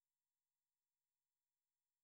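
Near silence: digital silence at the end of the video.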